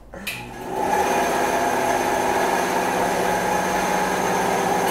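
Benchtop bandsaw switched on with a click, its motor spinning up within about a second and then running steadily with a constant hum and whine.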